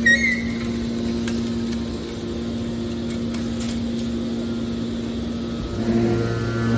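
Hydraulic scrap-metal baler's power unit running with a steady hum. There is a short high metallic squeal at the start, and a deeper hum joins about six seconds in.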